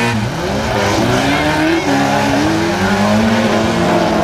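Demolition derby cars' engines revving hard on a dirt track, their pitch rising and falling repeatedly with throttle and gear changes.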